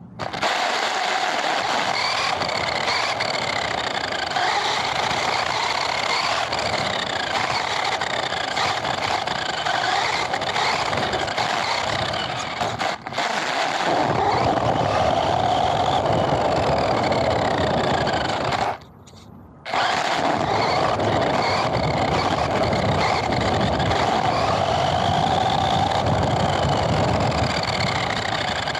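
Radio-controlled car driving, heard up close from its point-of-view camera: steady running and rolling noise with a whine that rises and falls again and again as it speeds up and slows down. The sound cuts out for under a second about two-thirds of the way through.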